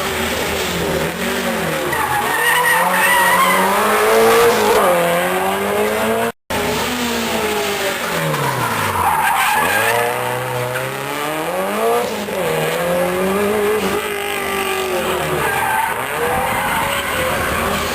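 A competition car's engine revving hard, its pitch repeatedly rising and falling as the car is driven and skidded, over tyre noise. The sound cuts out for a moment about six seconds in.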